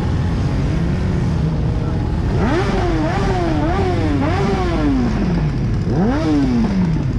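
An engine revved up and down several times over steady vehicle noise, its pitch climbing and dipping before falling away as it winds down; near the end it is revved once more quickly and falls again.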